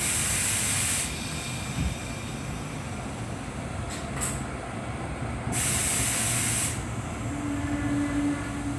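Inside a passenger train: a steady rumble broken by two loud hisses of compressed air, each about a second long, one at the start and one about two-thirds through. A short steady tone sounds near the end.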